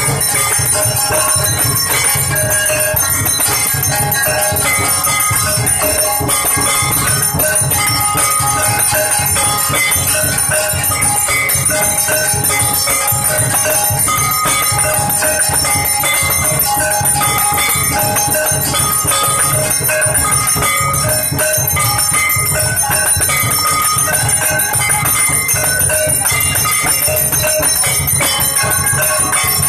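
Hindu temple aarti: bells ringing nonstop over a steady low beat and a devotional tune, loud and unbroken.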